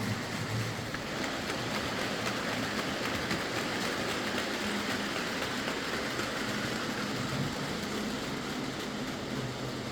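Bachmann Class 47 OO gauge model locomotive running on track: a steady motor hum with the rolling noise of its wheels on the rails, and no screech now that its drive has been lubricated.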